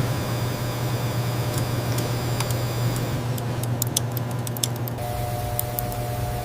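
Steady low machine hum with scattered light ticks and clicks; a second, higher steady tone joins about five seconds in.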